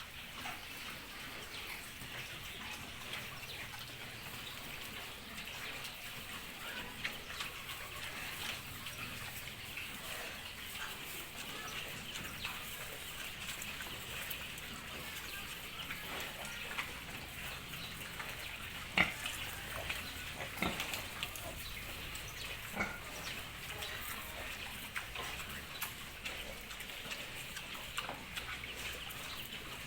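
A pen of piglets making a continuous chatter of short, high squeaks and grunts, with scattered sharp clicks, the loudest about two-thirds of the way through.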